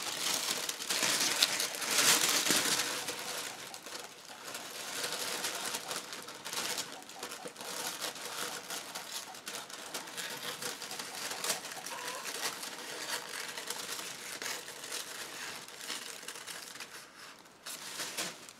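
Tissue paper rustling and crinkling as it is handled and a strip is cut from it. It is loudest in the first few seconds, then goes on more softly with small clicks.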